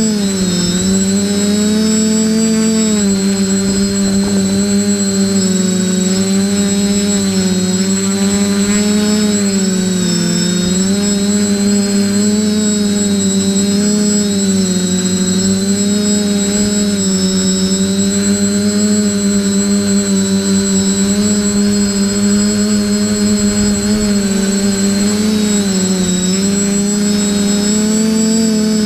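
A multirotor drone's propellers and electric motors humming steadily, heard loud from its onboard camera. The pitch wavers up and down every few seconds as the motors adjust speed to hold and shift position, with a high motor whine over the hum.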